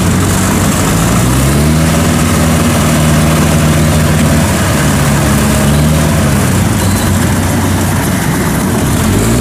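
Engine of a small tracked mud crawler working through deep, boggy rice-field mud. It revs up about two seconds in, holds under load while the tracks churn, and drops back to a lower speed a little past halfway.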